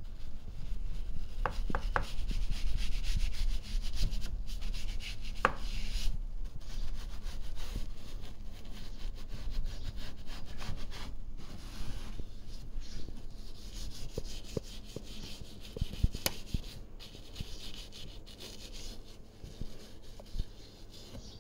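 A detailing brush scrubbing the rubber weather strip and window channel of a car door, wet with all-purpose cleaner: a steady, rapid brushing and rubbing sound, with a few sharp clicks in the first several seconds.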